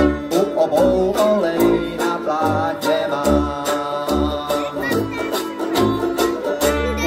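Live instrumental passage from a small band: tuba bass notes about once a second, strummed banjo, washboard scraping and clicking, and a trumpet melody on top. Near the end the tuba holds one long low note.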